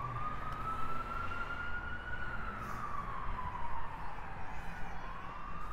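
An emergency vehicle siren in a slow wail. The pitch rises for about two seconds, falls for about three, then starts climbing again near the end.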